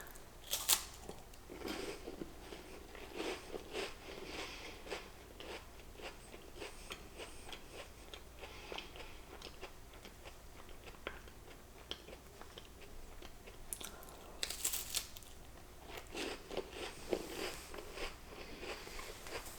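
A person chewing and biting into a crunchy snack close to the microphone, with soft crunches and mouth clicks scattered throughout. There is a louder burst of crunching about three-quarters of the way through.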